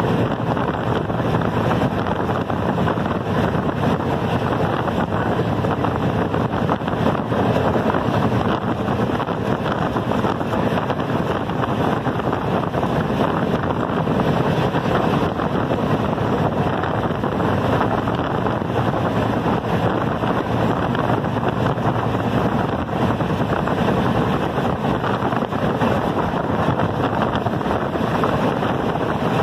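Loud, steady rush of a moving train: wheels running on the rails and wind blowing past, with wind buffeting the microphone.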